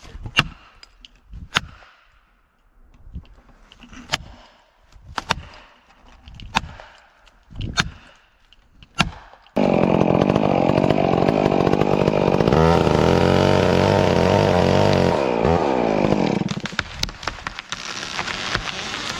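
A series of sharp knocks, about one a second, then about halfway through a chainsaw starts cutting. It runs loud and steady under load for about seven seconds, its pitch dropping as it bogs in the cut, then eases off.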